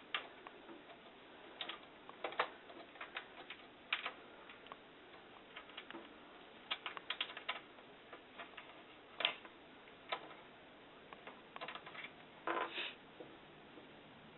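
Irregular clicks and light knocks as parts of an overhead projector are handled and fitted back into place, with a short cluster of rattling taps near the end.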